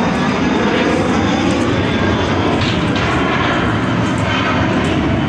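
Loud, steady engine drone that runs on without a break.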